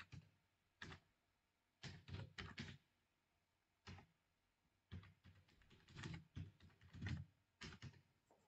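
Faint typing on a computer keyboard, keystrokes coming in short irregular bursts with pauses between them.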